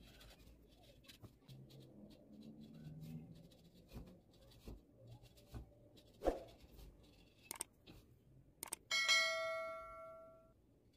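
Screwdriver tip scraping and picking at a hard white ball, a light run of scratches and clicks. About nine seconds in, a click and then a bell-like ding that fades over a second and a half, the loudest sound: the subscribe-button sound effect.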